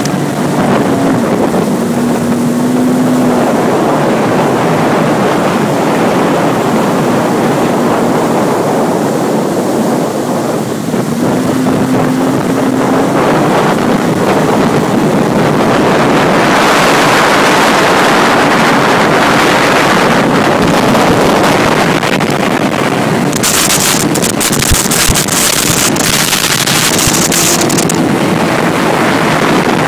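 Sea-Doo RXP personal watercraft running at speed: a steady engine drone under rushing water and wind on the microphone, with a harsher hiss for a few seconds late on.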